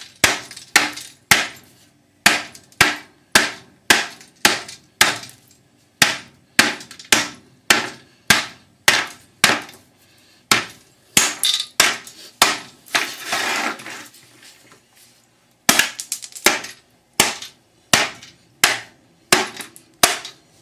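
Hammer blows knocking the plastic end tank off an aluminum radiator, about two sharp strikes a second, each with a short ringing tail. About thirteen seconds in, a noisier crunching sound lasting about a second, then a short pause before the strikes resume.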